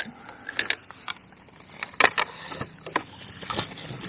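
A hooked chub splashing at the surface close to the bank, with several sharp knocks and splashes as it is drawn in and a landing net goes into the water.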